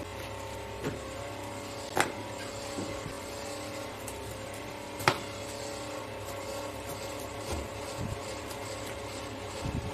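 A kitchen knife cutting down through pineapple skin and knocking on a wooden cutting board: a few soft taps and two sharp knocks about three seconds apart, over a steady background hum.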